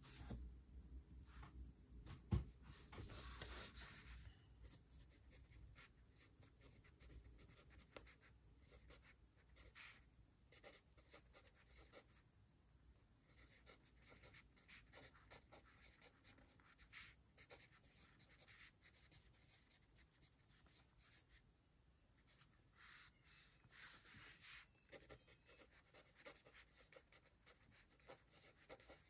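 Faint pen writing on paper: a steady run of short scratching strokes and light taps. There is a sharper knock about two seconds in and a brief paper rustle just after.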